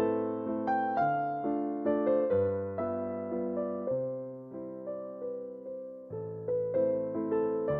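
Background music: a soft electric piano playing slow chords, each struck and left to fade.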